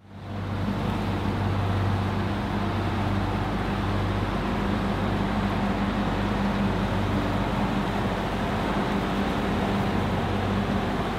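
Small harbor tug's diesel engine running steadily with a low hum, with water rushing along its hull.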